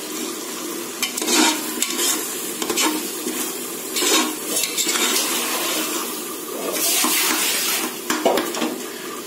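A ladle stirring and scraping a spiced biryani masala as it fries in oil in a metal pot: a steady sizzle with repeated scrapes of the ladle against the pot.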